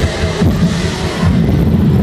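Dance music with a heavy bass line and a steady beat, played loud for a cheerdance routine.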